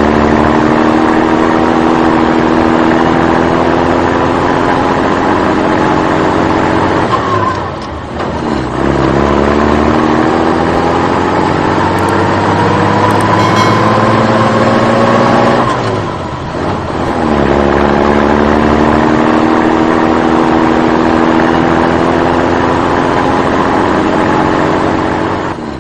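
A motor vehicle engine revving up and then running at a steady speed. About 8 and 16 seconds in it drops away briefly and revs up again. In the middle stretch its pitch climbs slowly.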